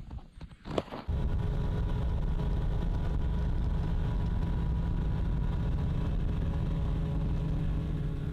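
An engine running steadily at constant speed, with a low rumble and steady hum, starting abruptly about a second in after a few faint knocks.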